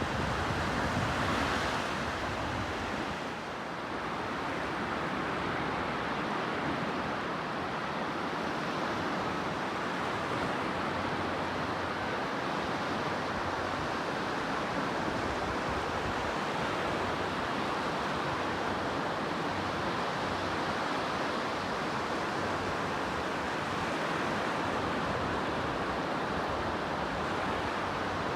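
Sea surf washing onto a shore, a steady rush of noise that swells slightly near the start and dips briefly a few seconds in.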